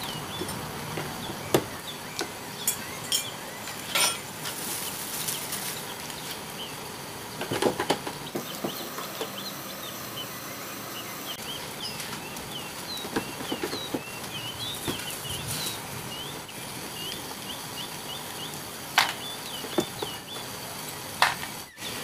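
A screwdriver working the screws out of a twin-tub washing machine's plastic base: scattered clicks, knocks and scrapes of the tool and the plastic. Small birds chirp throughout.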